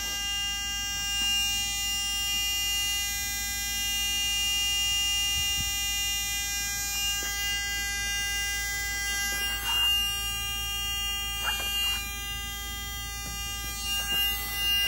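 A steady electrical buzz made of several constant high tones over a low hum, with a few short knocks in the second half.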